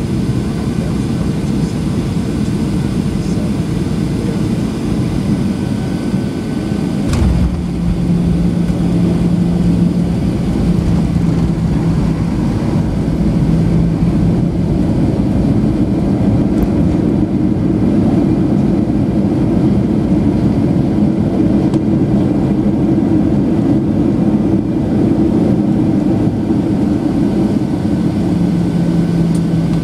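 Cabin noise of a Boeing 737-800 on landing: steady rumble of its CFM56 jet engines and rushing air, with a single thud about seven seconds in that marks the touchdown. After it a steady hum comes in and the rumble grows a little louder as the jet rolls down the runway.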